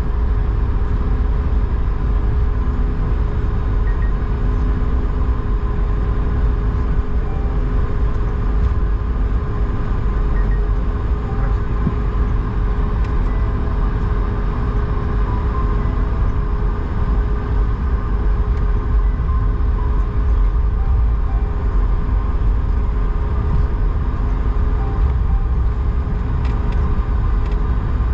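Steady cabin noise inside an Airbus A220 taxiing after landing: a low rumble from its Pratt & Whitney PW1500G geared turbofans at idle, with a steady hum held above it.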